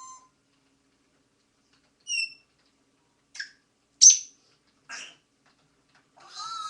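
African grey parrot making a string of short, separate calls: a clear whistle about two seconds in, brief clicks and squeaks, and a sharp high squeak about four seconds in, the loudest. Near the end comes a longer warbling, voice-like call.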